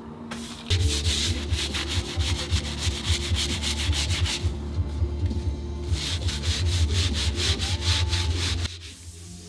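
Electric power tool cutting or sanding wood, running with a low hum and a rapid, even stroke, easing off briefly around the middle and stopping near the end.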